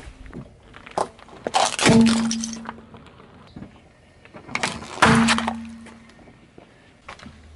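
A car tyre crushing a plastic light-bulb-shaped bottle of blue liquid: two loud sharp crunching cracks, about two and five seconds in, each followed by a short steady low tone.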